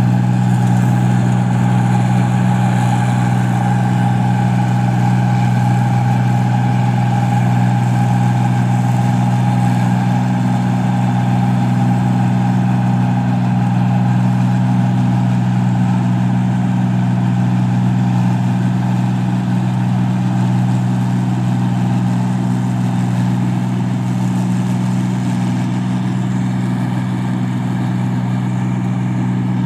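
Paddy (rice) machine running steadily, a constant low engine drone that holds the same pitch throughout.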